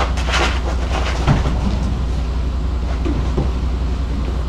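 Knocks and rustles of a sled-style ice fishing shelter being carried and loaded onto a pickup truck, a few in the first second and a half and a couple more about three seconds in, over a steady low rumble.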